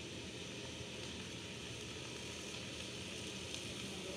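Ice cube sizzling in a hot frying pan as it melts: a steady hiss with a few faint crackles.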